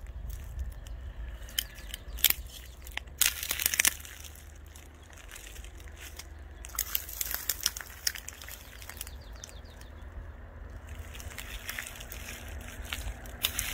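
Dry twigs and brush crackling and snapping in short runs of sharp clicks, loudest a couple of seconds in and again about seven seconds in, over a low steady rumble.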